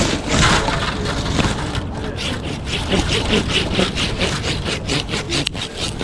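Handsaw cutting through a tree limb in quick, even strokes, about four a second, starting about two seconds in.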